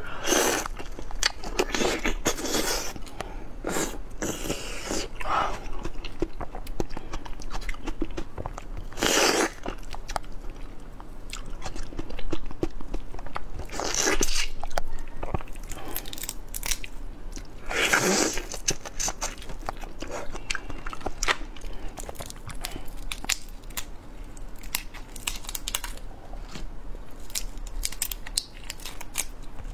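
Close-miked eating of a large red shrimp: biting, crunching and chewing through shell and head, with many small crackles and several louder, longer bursts.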